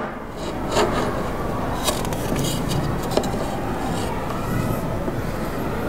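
A wooden ruler being shifted against a whiteboard, giving a few light knocks and scrapes over a steady background noise.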